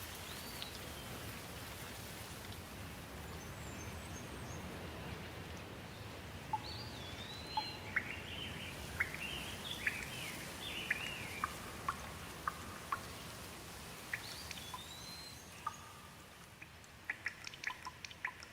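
Steady rain with birds chirping through the middle. Near the end the rain eases and single drips tick out plainly.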